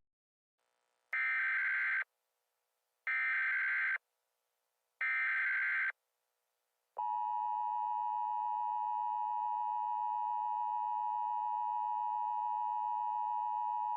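Emergency Alert System header: three bursts of digital data tones, each about a second long and about a second apart. About seven seconds in, a steady, unbroken attention tone begins.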